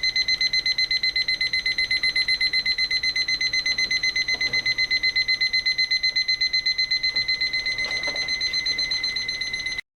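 AcuRite atomic alarm clock's alarm going off: a rapid, high-pitched electronic beeping, about eight beeps a second, that cuts off abruptly near the end.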